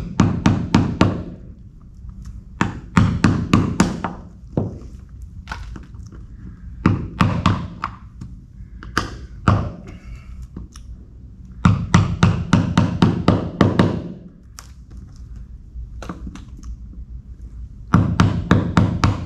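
Hammer tapping a small screwdriver into the slots of bronze screws in a wooden boat hull plank, cleaning them out. The taps come in quick runs of about six a second, each run lasting a second or so, with short pauses between.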